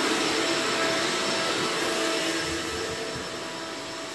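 A steady whirring of a small electric motor with a hiss over it, growing a little quieter toward the end.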